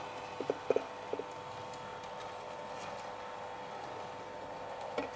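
Model train running on a layout's track, with a few light clicks in the first second or so as its wheels pass over rail joints. After that there is only a steady hum.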